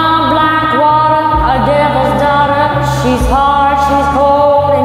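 A woman singing a few long held notes, each sliding up into pitch, over a karaoke backing track.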